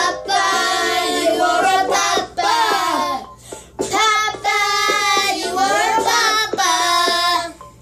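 Children singing a homemade birthday song together, in phrases of long held notes and sliding pitches, with short breaks between phrases.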